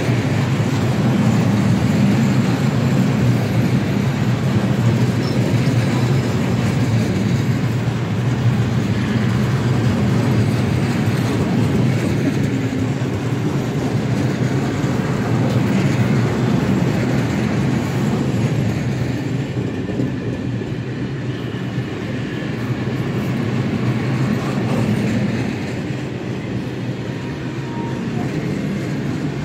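Freight train of open coal wagons rolling past, a steady rumble of wagon wheels on the rails that eases off a little near the end.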